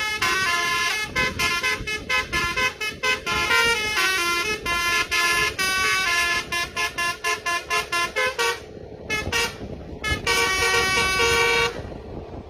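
Basuri multi-tone musical horn playing a fast melody of short stuttering notes, thinning out about eight and a half seconds in, then a few longer held notes before it stops near the end.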